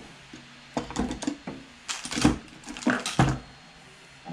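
Handling noise from wiring work: clatter, knocks and rustles as wires, a ring terminal and pliers are handled, in a few short bursts over about two and a half seconds.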